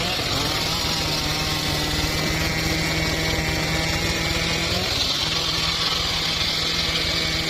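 Homemade circular saw running steadily while cutting mahogany, a motor drone with a hissing blade noise over it. Its pitch dips briefly near the start and again about five seconds in, then recovers.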